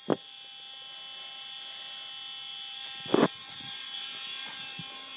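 Fire alarm horns sounding a steady, unbroken tone on continuous horn, muffled by a hand over the phone's microphone, with a handling knock about three seconds in.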